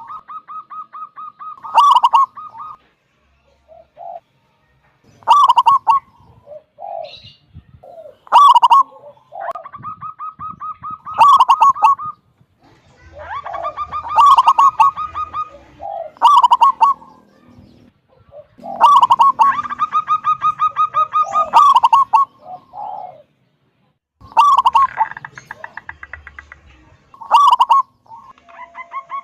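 Zebra dove (perkutut) singing its cooing song over and over, about ten phrases in all: each opens with sharp notes and runs into a fast purring trill, one every two and a half to three seconds.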